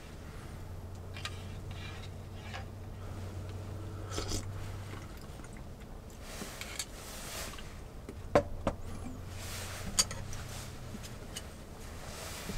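Eating sounds: a spoon scraping and clinking in a small metal cup, with chewing, and two sharp clinks of utensil on metal in the second half. A low steady hum runs underneath for the first few seconds and again later.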